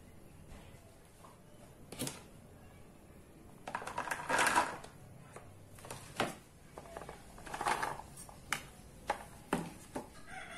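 Cut long beans being tipped and pushed off a plastic cutting board into a plastic bowl: scattered knocks and rustling clatters, busiest about four seconds and about eight seconds in.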